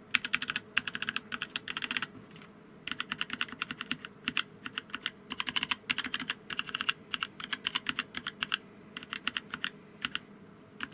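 Mechanical keyboard keys being pressed in quick runs, with a short pause about two seconds in. They are heavy (60 g) black linear switches swapped into the WASD keys, and each press gives a soft, scratchy 'suko-suko' rubbing sound rather than a click.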